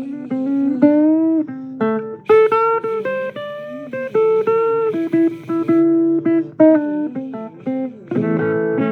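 Blues guitar playing an instrumental break of single plucked notes, several bent upward in pitch, ending in a fuller chord near the end.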